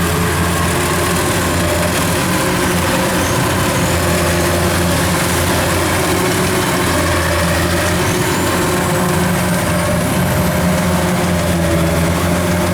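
A rice combine harvester's diesel engine running steadily at a constant speed.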